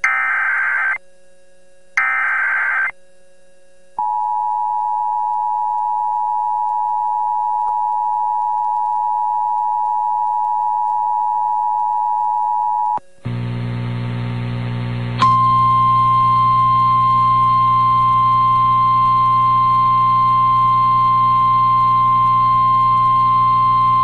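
Emergency Alert System tones relayed over broadcast radio. First come two screeching one-second SAME data bursts about a second apart, which open the alert. Then the two-tone attention signal sounds steadily for about nine seconds, followed after a moment of humming static by the steady single-pitch NOAA Weather Radio warning alarm tone for about nine seconds.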